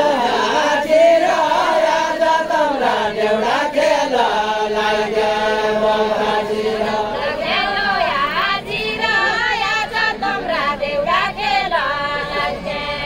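Unaccompanied deuda folk singing: a group of men's and women's voices chanting a far-western Nepali deuda song together, holding long notes that bend and waver.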